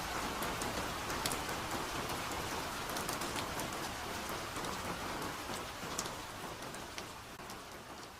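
Soft rain falling steadily in a forest, an even hiss with many distinct single drops ticking close by. It grows gradually quieter near the end.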